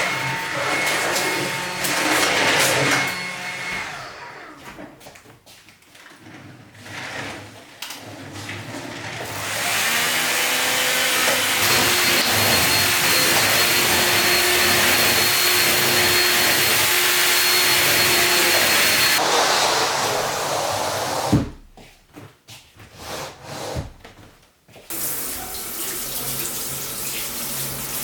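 Water running from a tap, in several separate stretches with short quiet breaks between them; the longest is a steady run of about nine seconds in the middle.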